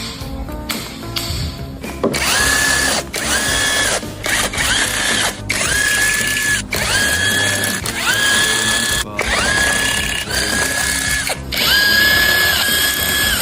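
Power wrench run in about ten short bursts, each one spinning up to a steady whine and cutting off, as fasteners are undone on a 5.7 HEMI V8 being taken apart.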